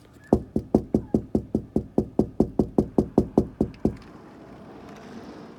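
Impact lawn sprinkler ticking, about five sharp clicks a second for some three and a half seconds, then giving way to a softer, steady hiss near the end.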